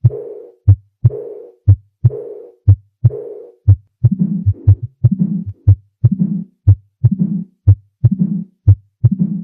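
Recorded heart sounds beating about once a second, each beat followed by a murmur that fades away: the diastolic decrescendo murmur of aortic regurgitation, common in athletic horses. About four seconds in, the murmur drops to a lower pitch.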